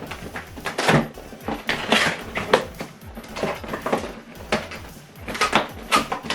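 Soundbar box being unpacked by hand: irregular knocks, scrapes and rustles of cardboard and packing material, with the sharpest knocks about a second in and near the end. Background music plays underneath.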